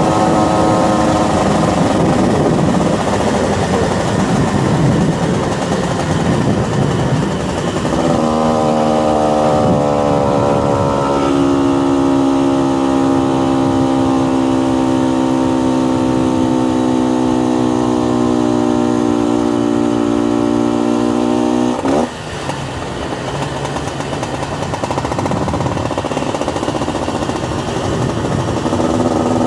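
Honda NSR two-stroke motorcycle being ridden, heard from the rider's position: wind rush over the engine for the first several seconds, then a steady engine note from about eight seconds in. About two-thirds of the way through the note dips suddenly and the sound goes quieter, and the engine note comes back strongly near the end.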